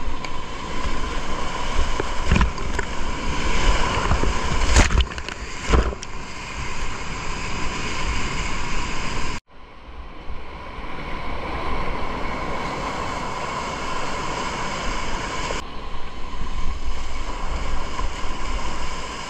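Whitewater rapids rushing and splashing around a kayak, with water hitting the camera and wind buffeting its microphone; a few louder splashes in the first several seconds. About halfway through the sound cuts out abruptly, then the rushing water picks up again.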